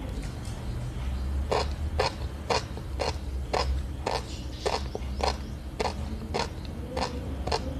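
Chewing a mouthful of orange fish roe: a crisp popping crunch about twice a second, over a steady low hum.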